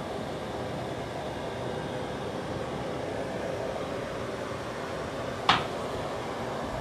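Steady background hum with one sharp click about five and a half seconds in.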